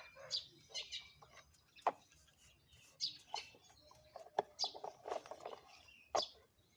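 Irregular light clicks and taps from toy trucks and soil being handled, with short bird chirps mixed in.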